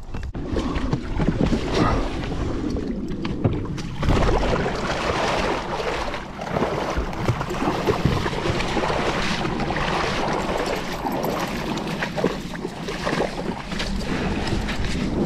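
Splashing and sloshing of a dog and a person wading through shallow water onto a sandy bank, with irregular knocks and scuffs throughout.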